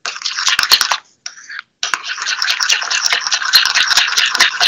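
A whisk scraping rapidly round a small bowl as homemade chocolate is mixed with vanilla paste, a fast scratchy rasping with a short pause about a second in.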